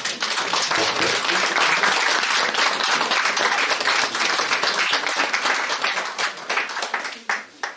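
Audience applauding: many people clapping at once, a dense, steady clatter that starts abruptly and dies away near the end.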